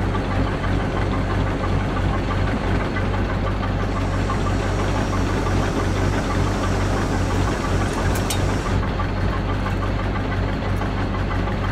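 Crane's diesel engine running steadily while its hoist holds and lowers a suspended engine, with a brief high click about eight seconds in.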